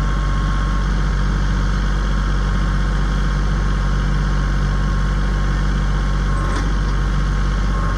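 Tractor engine running steadily at a constant speed, with a light click about six and a half seconds in.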